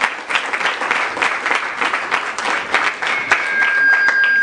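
Audience applauding, many people clapping together. Near the end a thin steady high tone sounds over the clapping.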